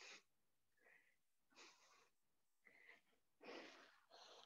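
Near silence with a few faint breaths of people exercising: three short puffs, the last and loudest about three and a half seconds in.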